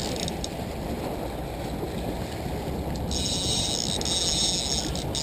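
A trolling reel's drag buzzing as a hooked king salmon pulls line off, starting about 3 seconds in and running about two seconds, over steady wind and boat noise on the open lake.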